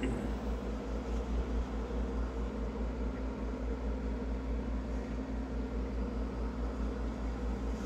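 Embraco hermetic reciprocating refrigeration compressor running with a steady low hum, working normally and pulling the suction line cold enough to frost white.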